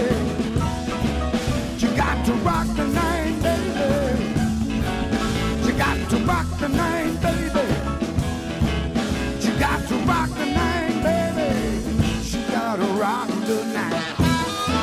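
Blues song recording with a full band keeping a steady beat under a lead line of bending notes. The bass drops out for a moment about twelve and a half seconds in, then comes back.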